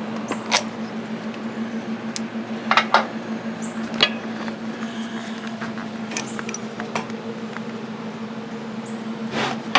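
A handful of sharp metallic clicks and clinks from mower parts and tools being handled, scattered over a steady low hum.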